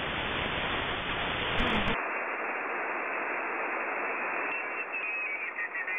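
Receiver hiss and static from a shortwave web receiver tuned in the 27 MHz CB band, with no clear transmission. About two seconds in the hiss turns thinner and narrower as the receive filter is narrowed. Faint garbled chirps appear near the end.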